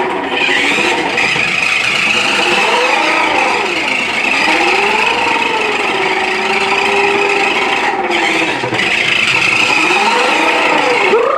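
Battery-powered toy RC car's small electric motor and plastic gearbox whining, its pitch rising and falling as the car speeds up and slows while being driven.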